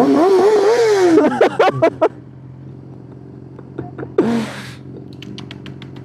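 Suzuki GSX-R600 motorcycle engine idling steadily. Over the first two seconds a loud sound wavers up and down in pitch and ends in several sharp pops, and near the end comes a quick run of clicks.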